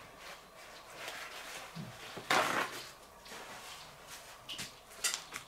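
Faint handling and mouth noises while eating a wrap, with one short rushing burst of noise about two seconds in.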